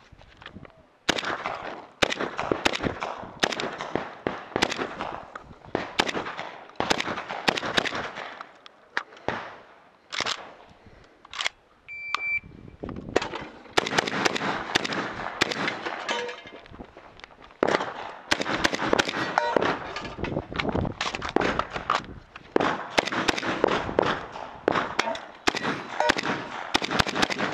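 AK-pattern semi-automatic shotgun fired in fast strings of shots, several a second, with short pauses between strings.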